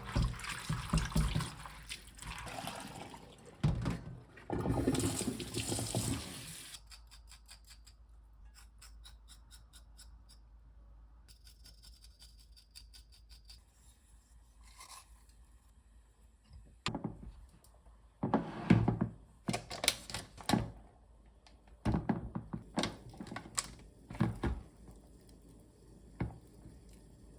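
Water running in two short spells, then a quiet stretch and a series of scattered knocks and clatters near the end.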